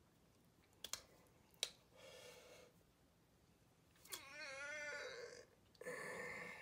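A faint, wavering, meow-like cry about four seconds in, with a shorter rough cry near the end. A few sharp taps come earlier.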